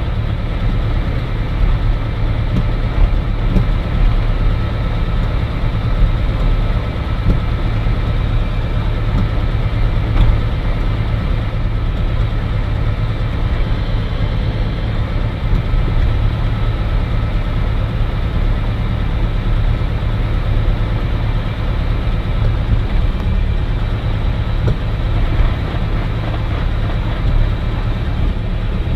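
Cirrus SR20's four-cylinder piston engine and propeller running at a steady drone, heard from inside the cockpit.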